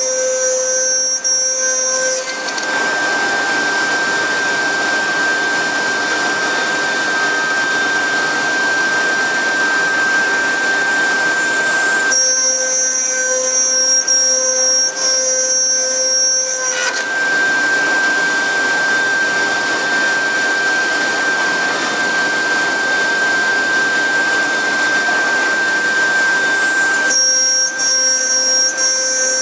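CNC router's air-cooled spindle running with a steady high whine while the bit carves the sheet. A rougher cutting noise fills two long stretches, dropping back to the bare whine about twelve seconds in and again near the end.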